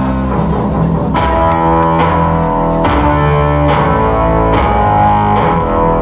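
Rock band playing live through a concert sound system: sustained low bass notes under guitar, the chords changing about once a second.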